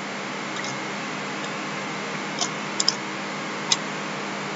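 A handful of short computer mouse clicks, two in quick succession near the middle, over a steady microphone hiss with a faint hum.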